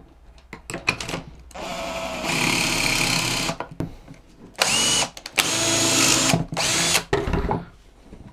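Makita cordless drill boring a pocket hole with a stepped bit through a jig guide into a board. It runs in three goes: a run of about two seconds, a brief burst, then another run of about a second and a half.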